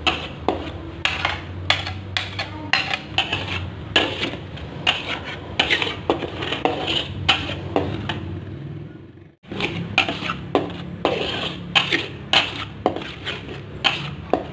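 Metal spatula scraping and clacking against a wok in quick, repeated strokes as a thick blended peanut-chili paste is stirred and sautéed. The strokes break off briefly about nine seconds in.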